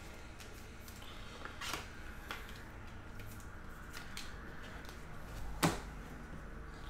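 Clear plastic card sleeves crinkling as trading cards are handled and sleeved, with scattered light clicks and taps; the loudest is a sharp click about five and a half seconds in.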